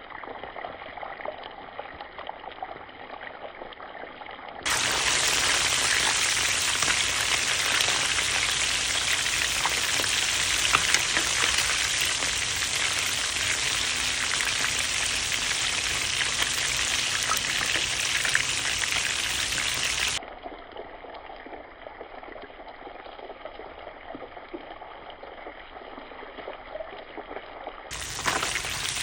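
Whole snapper frying in hot oil: a steady sizzle with fine crackling. It jumps abruptly between a louder, brighter sizzle from about 5 to 20 s and again near the end, and a duller, quieter one otherwise.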